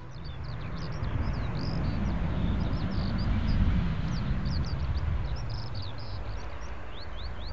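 Low, steady rumble of distant Panavia Tornado jet engines running on the ground, with birds chirping over it in quick, short high notes.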